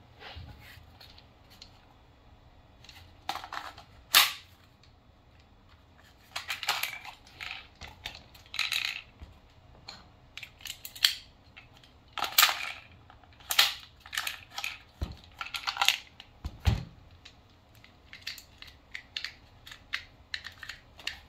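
Irregular sharp clicks, knocks and clatter of hard objects, with one loud snap about four seconds in.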